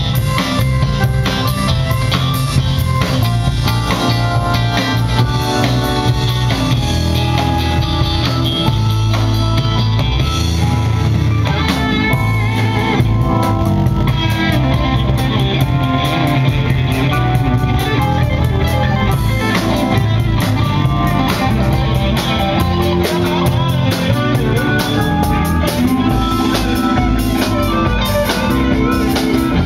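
Live rock band playing an instrumental passage: electric guitar over drum kit and keyboard.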